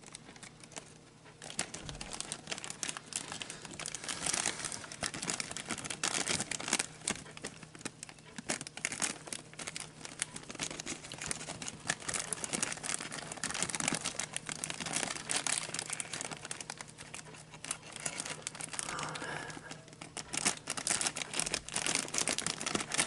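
Plastic bag crinkling and rustling as it is handled: dense, irregular crackling that starts about a second and a half in and keeps on, likely the bag of feeder crickets being worked open.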